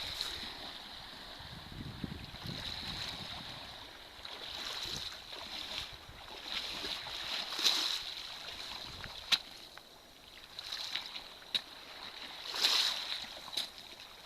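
Small waves washing on a stony beach, with a faint steady high whine and several sharp clicks or splashes standing out in the second half.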